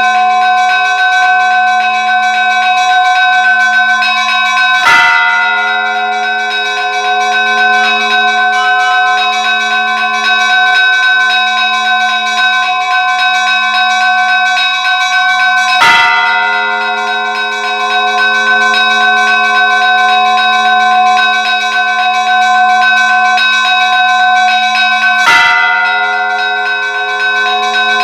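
Church bell ringing: struck three times about ten seconds apart, each stroke ringing on until the next.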